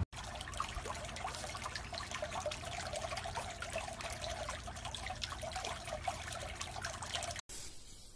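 Swimming-pool water trickling and splashing steadily, with many small drips and splashes, cutting off suddenly near the end.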